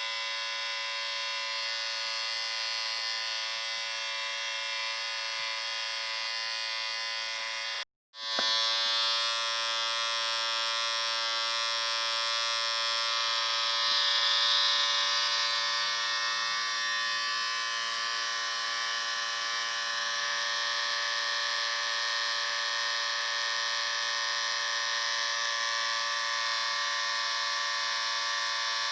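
Electric shaver running with a steady buzz. It cuts out for a moment about eight seconds in, then starts again.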